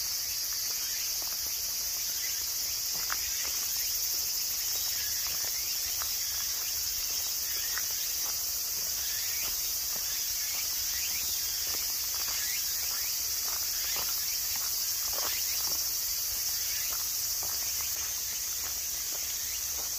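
A steady high-pitched chorus of insects singing in the woods, with irregular footsteps crunching along a gravel path.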